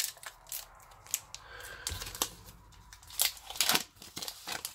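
Foil booster-pack wrapper of Pokémon trading cards crinkling and tearing as it is ripped open by hand, in irregular crackles and rips. The loudest rips come a little past the middle.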